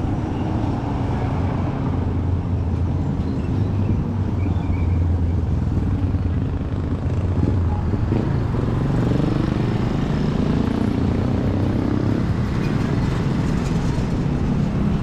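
A motor engine running with a steady low rumble; about nine seconds in, its pitch rises for a few seconds.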